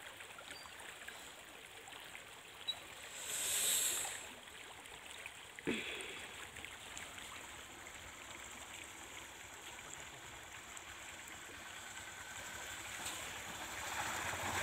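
Steady, faint rush of a shallow river flowing, with a brief swell of hiss about three to four seconds in and a single knock a little later. Near the end the noise grows louder as a motorcycle rides down into the water.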